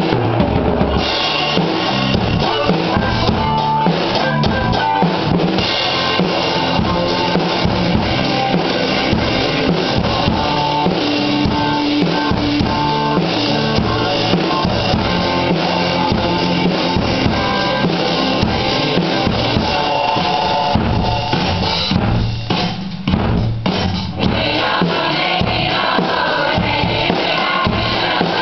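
Acoustic drum kit played in a steady rock beat, with bass drum, snare and cymbals, along with a recorded rock song. The sound briefly thins out about three-quarters of the way through.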